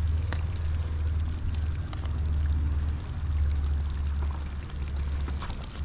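Steady low roar of an outdoor propane burner heating a pot of fish curry, with a few faint soft plops and ticks as pieces of raw gilbaka fish are dropped into the curry.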